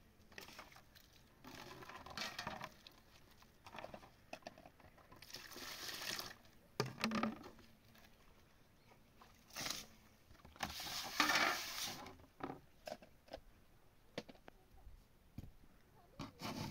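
Dishes being washed by hand in plastic basins: water splashing and sloshing in bursts, the loudest about two-thirds of the way through, with light clinks of dishes in between.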